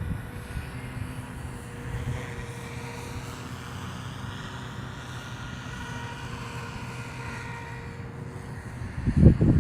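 Electric SAB Goblin Fireball RC helicopter flying, its rotor and motor giving a steady whine that shifts slowly in pitch, over a low wind rumble on the microphone. From about nine seconds in, strong wind gusts buffet the microphone loudly.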